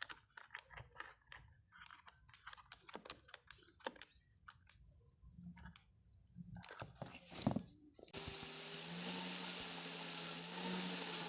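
Irregular crunching and scraping clicks of handling, then about eight seconds in an electric power-tool motor starts and runs steadily with a low hum, the sanding machine on which the plywood pad is mounted to be trimmed flat.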